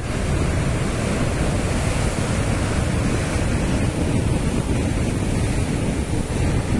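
Rough Black Sea surf breaking and churning over shoreline rocks below a cliff, a steady rushing wash, with wind buffeting the microphone.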